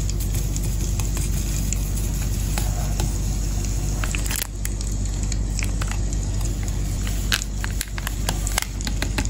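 Preparing instant 3-in-1 matcha milk tea: a steady low rumble with faint crackling and a few sharp clicks and taps scattered through it.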